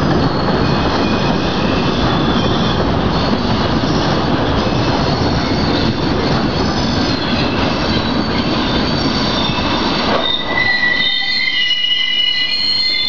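Freight train of rail tank wagons rolling past with its braked wheels squealing loudly over a heavy rumble of wheels on rail. About ten seconds in the rumble fades and a steady high-pitched squeal carries on.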